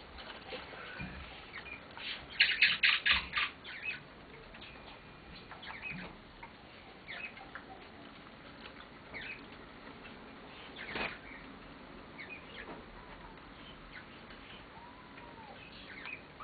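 Indian ringneck parakeet playing with a hanging toy of beads and wooden blocks: scattered clicks and rattles, with a loud burst of rapid clattering about two to four seconds in and one sharp click near the eleven-second mark. A few short chirps in between.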